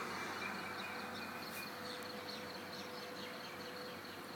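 Many small birds chirping and calling in the rain, over a steady high-pitched buzz and a soft even hiss.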